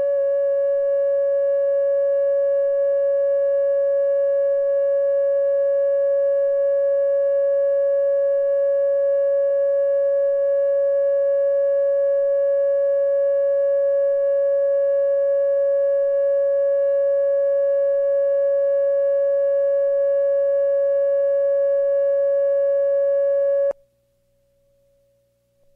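Loud, steady electronic test tone of a single pitch a little above 500 Hz with faint overtones, held unchanged for about 24 seconds and then cut off abruptly near the end: a line-up tone at the head of an old radio broadcast recording.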